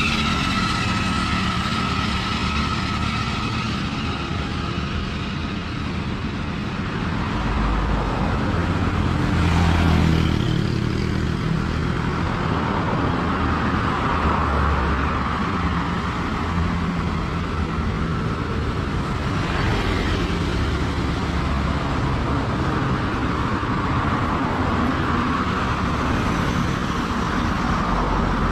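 Street traffic passing close by: motorbikes and cars going by one after another, with a motorbike engine fading away at the start and louder passes about ten and twenty seconds in.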